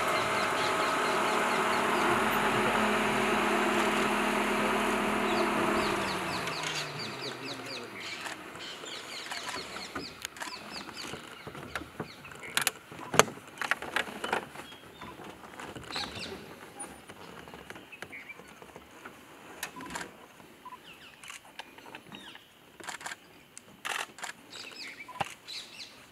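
A vehicle engine idling steadily is switched off about six seconds in, its pitch falling as it runs down. After that the forest is quiet except for birds chirping and scattered sharp clicks.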